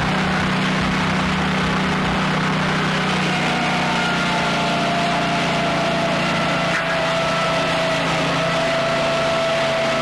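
Portable circular sawmill running steadily as its blade cuts through a log, a continuous machine drone with a steady whine over it.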